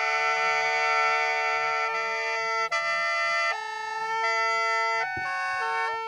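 Background music: several held notes sounding together as chords, the melody moving in steps from one sustained note to the next, with no beat.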